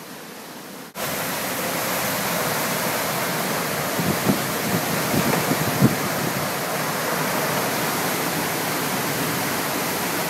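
Category 1 hurricane wind and heavy rain: a loud, steady rushing hiss that starts abruptly about a second in, with a few low thumps of gusts buffeting the microphone in the middle.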